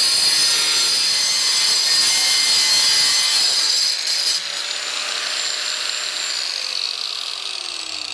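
Angle grinder with a Graff diamond metal-cutting wheel cutting through rusted sheet steel with a loud, steady high whine. The cut ends about four seconds in; the grinder then runs on unloaded and winds down with a falling whine near the end.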